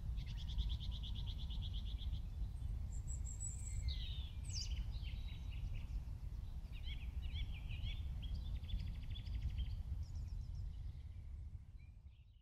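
Songbirds singing outdoors over a steady low wind rumble: a fast trill right at the start, scattered chirps and calls in the middle, then more trills, before everything fades out at the end.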